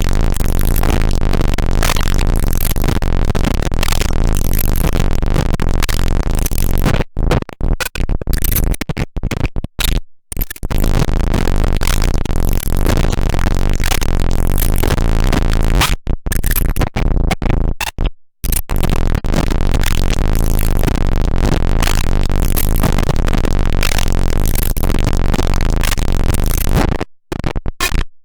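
Drum machine played through the Snowstorm white-noise distortion pedal: a dense wall of harsh distorted noise with heavy blown-out bass, like a dying speaker. It cuts out in short stuttering gaps several times.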